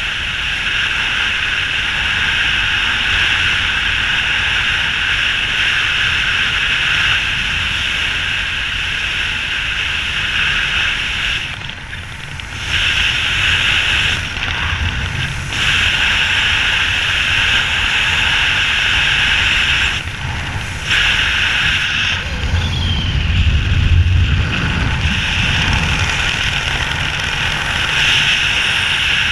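Wind rushing over a helmet camera's microphone during a descent under an open parachute canopy: a steady loud hiss with a low rumble, dropping away briefly a few times.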